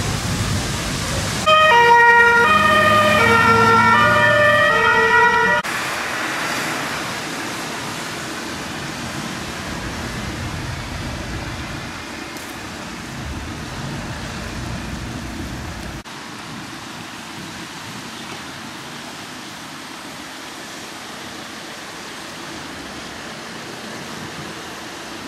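A German two-tone emergency-vehicle siren sounds loudly for about four seconds, stepping back and forth between a higher and a lower note, then cuts off abruptly. After that comes a steady hiss of heavy rain and wind.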